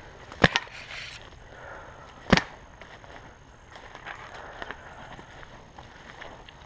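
Two sharp cracks of paintball marker shots about two seconds apart, the first followed at once by a quieter second crack.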